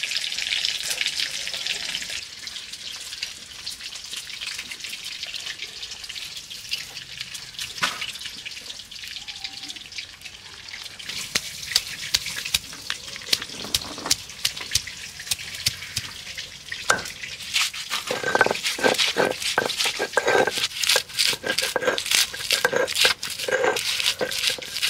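Stone roller knocking and grinding on a flat stone grinding slab (sil-batta), crushing green chillies, garlic and ginger. There are scattered taps at first, then from about three-quarters of the way in, quick repeated knocks about two to three a second. Water trickles onto the stone at the very start.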